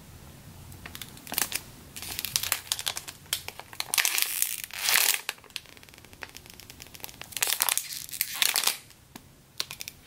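Clear plastic bags crinkling as packaged squishy toys are handled and turned in the hands, in several spells, loudest about four to five seconds in and again about eight seconds in.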